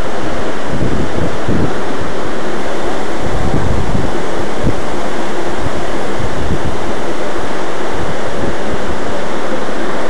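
Tall waterfall pouring onto rocks close by: a loud, steady rush of falling water, with uneven low buffeting on the microphone from spray and wind.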